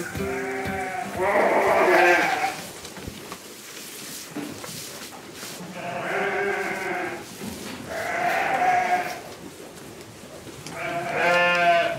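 Sheep bleating, about five separate bleats a few seconds apart, the last one wavering.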